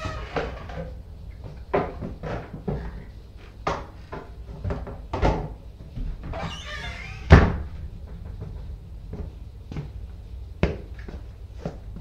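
Household utensils being put away out of sight: a string of knocks and clatters with cupboard doors opening and shutting. A rustling, scraping stretch about six seconds in ends in the loudest thump.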